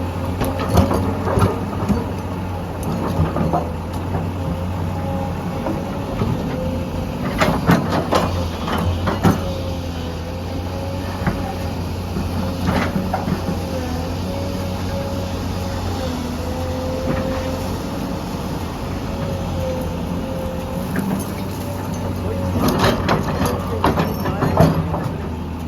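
Heavy diesel excavator running steadily, with a high, faintly wavering whine over the engine drone, broken by scattered knocks and clatters, most about a third of the way in and near the end.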